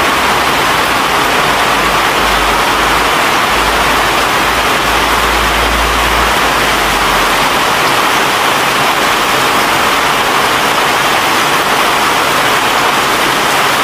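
A loud, steady rushing noise without any pitch, even and unbroken, with a low rumble underneath for a few seconds in the first half.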